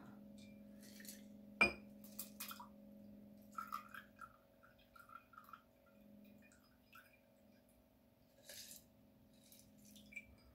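Crushed ice shifting and clinking inside a glass mixing glass as a stirred cocktail is poured out of it into two glasses. The clinks are faint and scattered, with one sharp glass clink about one and a half seconds in. A faint steady hum lies underneath.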